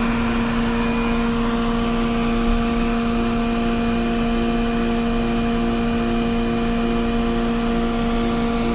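The 20-horsepower MultiCam TurboVac vacuum hold-down system is running steadily. It makes a loud, even mechanical drone with a strong constant hum.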